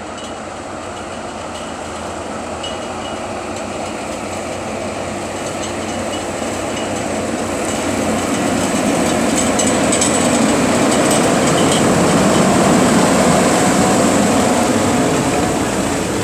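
Fendt 724 Vario tractor's six-cylinder diesel engine running under load as it pulls a six-furrow reversible plough. The steady drone grows louder as the tractor approaches, is loudest about three-quarters of the way through, then eases slightly.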